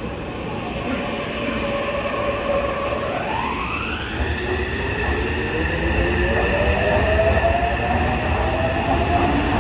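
Yokohama Municipal Subway 3000R-series train with a Mitsubishi IGBT-VVVF inverter pulling away from the platform. About three seconds in, the inverter whine sweeps up sharply in pitch. The motor tones then climb steadily as the train gathers speed, and the wheel rumble grows louder.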